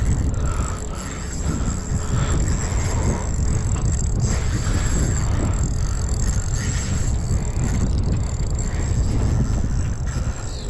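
Wind buffeting the microphone in a steady low rumble.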